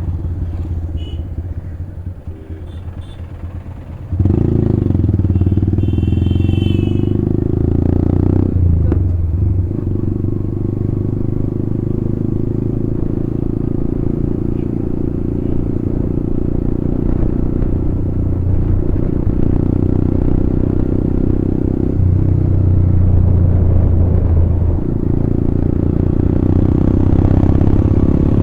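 Motorcycle engine and exhaust running steadily while riding. The sound is quieter for the first few seconds, then gets suddenly louder about four seconds in and stays loud.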